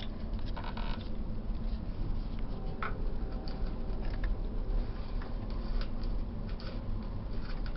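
Scattered light clicks and scratching of hands handling plastic parts and wires at a clothes dryer's door switch, over a steady low hum.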